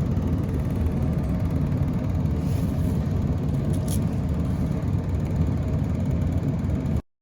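Steady low rumble that cuts off abruptly near the end.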